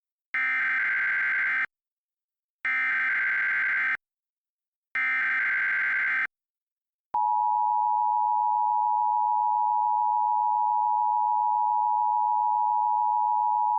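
Emergency Alert System header: three short bursts of screeching digital SAME data tones, separated by silences, followed about seven seconds in by the steady two-tone EAS attention signal (853 and 960 Hz sounded together). The sequence marks the start of an emergency alert broadcast.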